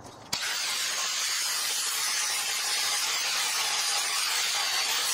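Makita angle grinder with a thin cut-off disc cutting through steel bar, giving a steady, high hiss of disc on metal. It starts suddenly a moment in.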